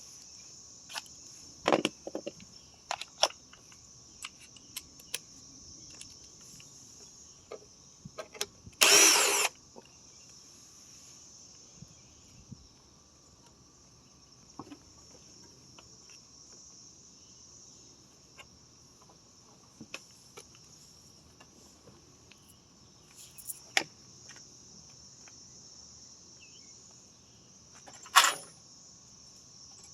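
Crickets trilling steadily, with scattered clicks and knocks of hand work on a mower, and a short loud noisy burst about nine seconds in and another near the end.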